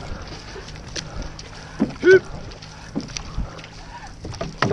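OC6 outrigger canoe paddles dipping and pulling through the water, with a splash at each catch every second or so. A brief shout rings out about two seconds in.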